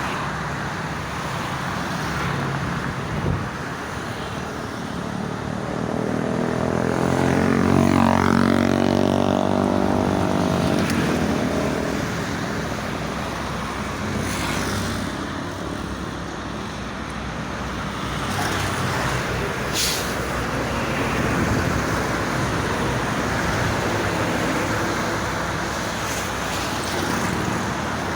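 Steady toll-road traffic. One vehicle passes close about seven to eleven seconds in, its engine tone loudest at about eight seconds, with a sharp click near twenty seconds.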